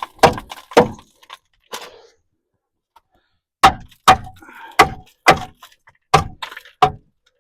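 Sharp knocks on the front brake backing plate (dust shield) behind the hub, about eight blows: two near the start, a pause, then six more in quick succession.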